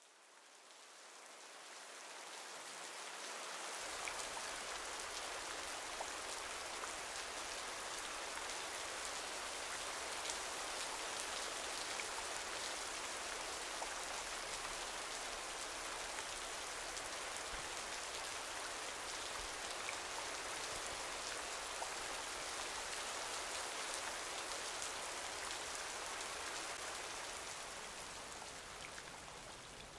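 Steady rain falling on pond water and lily pads, with scattered single drops ticking out of the hiss. It fades in over the first few seconds.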